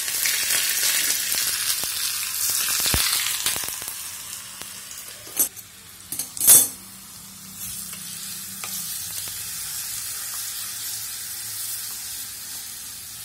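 Ginger-garlic paste sizzling as it fries in hot oil in a small steel tadka pan, stirred with a spoon. The sizzle is loudest for the first four seconds, then dies down as the pan comes off the flame, with a couple of sharp clinks about five and six and a half seconds in.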